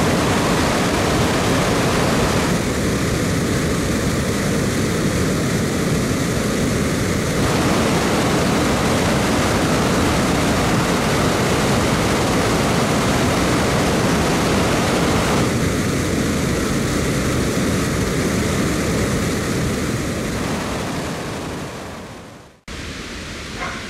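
Floodwater from a full reservoir pouring through its bellmouth overflow spillway (the 'plughole'): a loud, steady rush of churning water. It fades out about 21 seconds in and cuts off shortly before the end.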